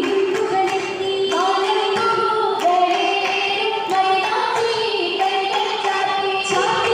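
Group of girls singing a Mappila song in unison for an Oppana dance, with sharp hand claps about once a second.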